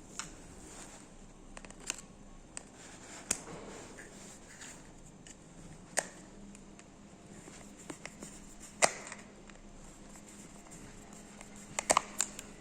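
A handful of sharp, isolated clicks and taps, then a quick cluster of three near the end, from handling the plastic motion-detector housing and its mounting bracket. A faint steady hum runs underneath.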